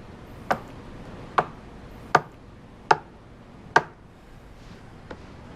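A series of six sharp knocks, evenly spaced, a little more than one a second, the last one fainter.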